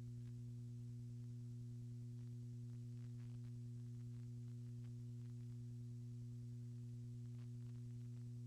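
Steady electrical hum, a low drone made of a few fixed tones, with a few very faint clicks. No room sound from the crowd comes through.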